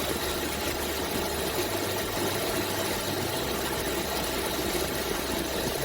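2011 Cadillac SRX's V6 engine idling steadily with the electric radiator cooling fan running. The fan is cycling normally after a coolant flush and refill: the coolant has circulated and the engine has reached operating temperature.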